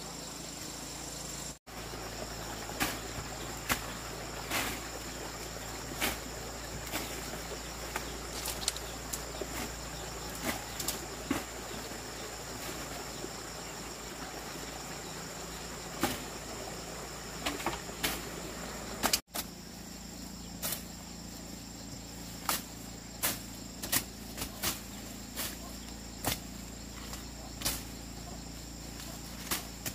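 Steady high-pitched insect chorus, with irregular light clicks and taps scattered through it. The sound drops out for a split second twice, near the start and about two-thirds of the way in.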